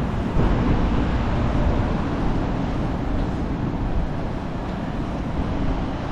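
Steady city street noise of passing traffic, with a low wind rumble on the microphone.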